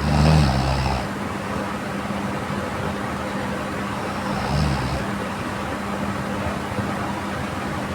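A sleeping person snoring: two snores about four seconds apart, the first louder and lasting about a second, over a steady hum and hiss.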